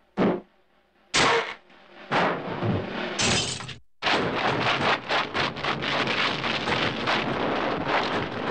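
Cartoon sound effects: a rock bouncing down a mountainside, a sharp thud followed by three loud crashes about a second apart. After a brief dead gap, a continuous rushing, rapidly flickering noise takes over as the air mattress slides across the snow.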